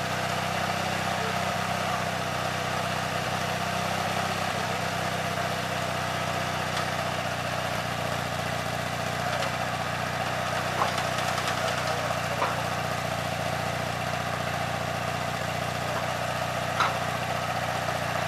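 Engine idling steadily, its low hum changing slightly about halfway through, with a few short sharp knocks in the second half.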